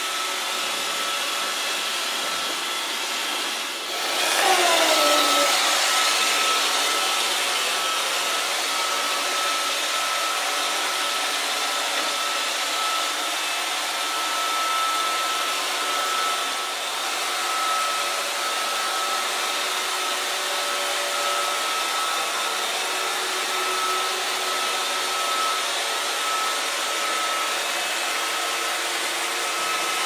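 iRobot Roomba 555 robot vacuum running: the steady whirr of its vacuum motor and brushes, with a thin high whine. About four seconds in it gets louder with a short falling whine, then settles.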